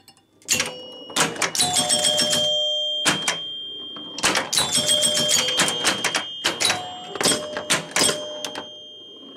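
1976 Gottlieb Target Alpha electromechanical pinball machine in play: its score chimes ring in repeated bursts, amid rapid clicking and clatter from its relays and flippers as the game scores.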